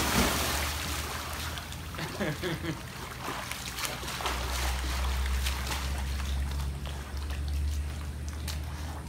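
Big splash as a bulldog jumps into a swimming pool, followed by water sloshing and splashing as it paddles across. A low steady hum comes in about four seconds in.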